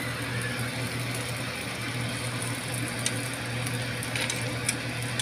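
Butter-topped mussels cooking on a grill pan over the stove: a steady low hum under a soft hiss, with a few faint pops.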